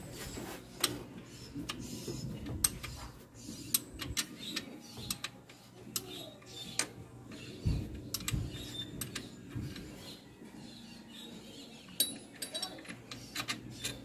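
Hand tools clicking and clinking against metal engine parts during unbolting: irregular sharp taps with a couple of dull knocks around the middle.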